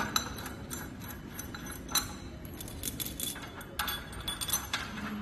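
Steel fittings clinking as a railway gauge rod's jaw clamp and fastenings are handled and fitted onto its threaded end: scattered sharp metal clicks, a few of them louder, near the start and about two seconds in.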